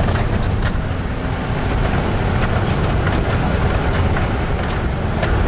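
Loud, steady cabin noise of a vehicle driving on a rough dirt road: engine and road rumble with a few scattered rattles and knocks.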